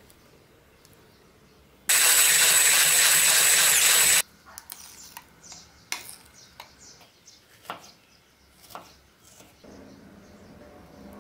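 An electric mixer runs in a bowl of cream for about two and a half seconds, a steady loud whirr with a faint high whine, starting and stopping abruptly. Before and after it come scattered soft taps and scrapes of a spoon against the bowl and the cake.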